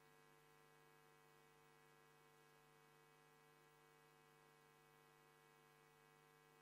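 Near silence during a moment of silence, with only a faint steady electrical hum.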